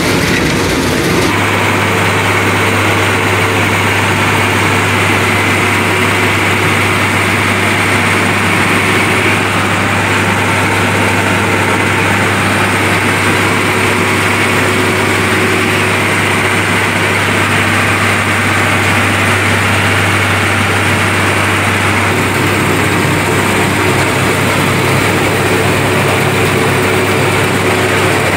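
Six-cylinder Fiat diesel engine of a combine harvester converted into a wheat straw chopper, running steadily with a constant low drone.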